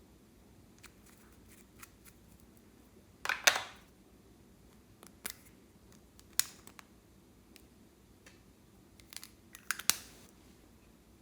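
Scattered sharp clicks and crackles from slime being worked by hand, with a loud crackling cluster about three and a half seconds in and another burst of clicks near the end.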